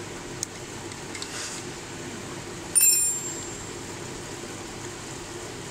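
A sharp metallic clink about three seconds in, ringing briefly with a bell-like tone as it dies away: a small metal part or tool being struck or set down on metal. A faint click comes earlier, over a steady low hum.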